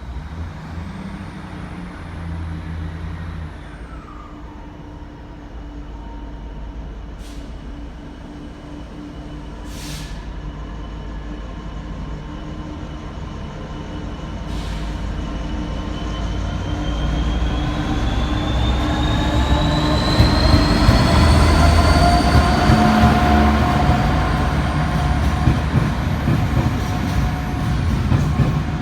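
Class 66 diesel locomotive's EMD two-stroke V12 engine running as it approaches and passes, growing louder and loudest about two thirds of the way in. Several high whining tones rise in pitch over the second half.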